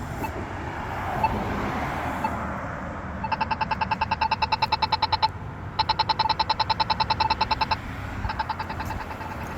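Polara iNS accessible pedestrian signal push button sounding its rapid tick, about ten pitched ticks a second, in three runs with short breaks, starting about three seconds in; the rapid tick marks the walk interval. Traffic noise before the ticking starts.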